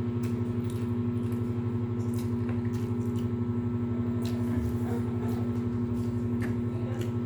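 Wet chewing and lip-smacking clicks of someone eating with their hands, scattered irregularly over a steady electrical hum with a fast low pulse.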